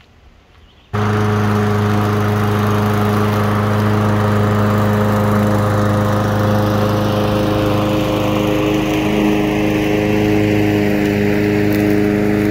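Masport Rotarola lawn mower engine running steadily under mowing load, coming in suddenly about a second in.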